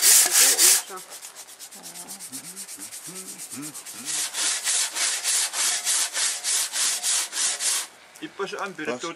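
Handsaw cutting through a block of soapstone in quick back-and-forth strokes, about four a second. The strokes are loud for the first second, fainter for a few seconds, then loud again until they stop about eight seconds in.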